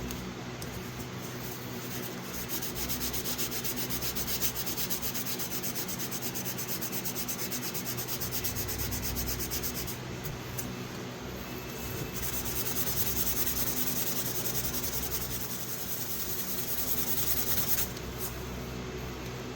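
Fine 2000-grit sandpaper rubbed by hand in quick back-and-forth strokes over a vintage folding knife, in two long spells with a short easing about ten seconds in, stopping just before the end.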